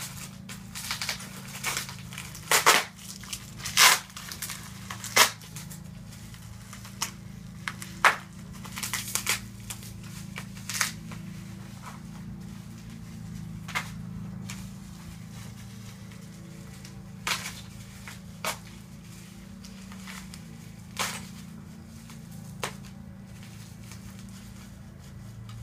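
Packing material being unwrapped by hand: irregular crinkling, rustling and tearing, frequent in the first ten seconds and thinning out to occasional crackles later.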